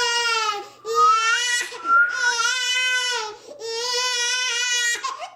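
A cranky 7-month-old baby crying in about four long, high-pitched wails, with short catches of breath between them.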